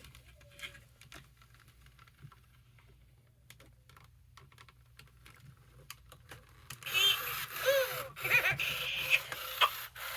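Faint scattered clicks from handling small parts, then about seven seconds in a 1998 Furby starts up loudly through its speaker. Its electronic voice makes warbling, chirpy sounds that sweep up and down in pitch.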